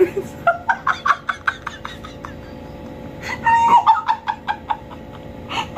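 A man laughing hard in quick, short, cackling bursts, in two runs, the second starting about three seconds in.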